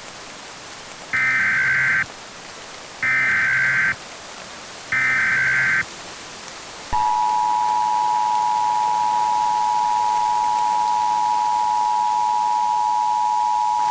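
Emergency Alert System header: three short bursts of buzzy SAME data tones, about a second each with pauses between. About seven seconds in, the steady two-tone EAS attention signal starts and holds to the end, over a constant radio hiss. Together they signal the start of an emergency alert broadcast.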